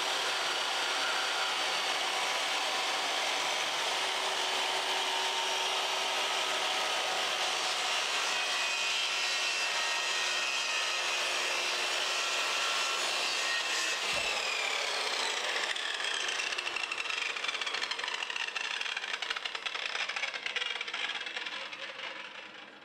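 Triton TA235CSL circular saw with a 40-tooth TCT blade running through wood in a fence-guided rip cut. From about two-thirds of the way in, its pitch drops and the sound turns uneven. It fades out at the very end.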